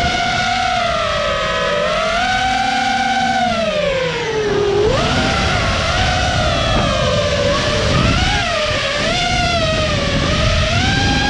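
Motors and propellers of a 5-inch FPV quadcopter whining, the pitch rising and falling with throttle. The pitch sinks about four and a half seconds in, then jumps back up.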